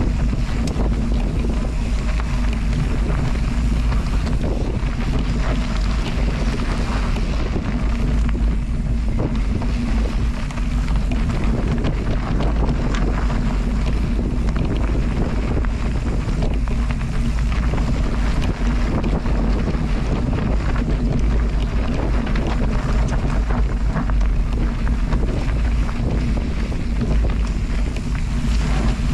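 Steady, loud rushing noise with heavy wind buffeting on the microphone, as from a camera moving fast through the air.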